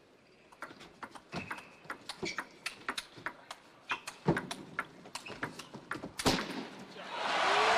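Table tennis rally: the ball clicking sharply and irregularly off the bats and the table. About six seconds in, the crowd breaks into applause that swells as the point ends.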